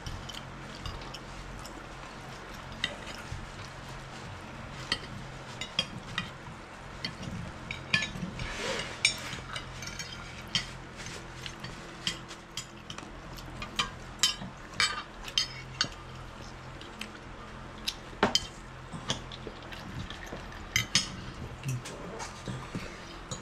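Cutlery clinking and scraping on plates as people eat, in irregular small taps and clicks over a low steady hum.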